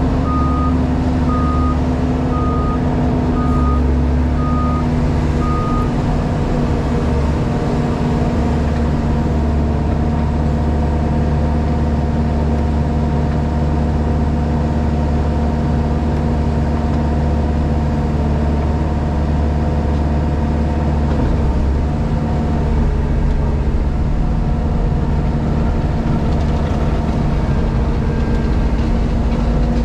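Diesel engine of a JCB Pothole Pro running steadily. A reversing alarm beeps about twice a second and stops about six seconds in.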